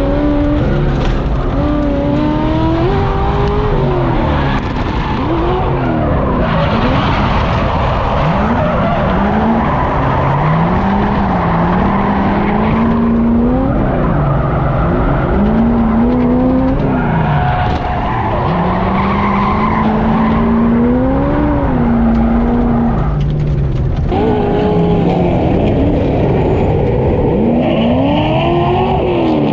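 Drift car engine revving up and down every couple of seconds over a constant tyre screech as the car slides sideways through corners, its rear tyres spinning and smoking.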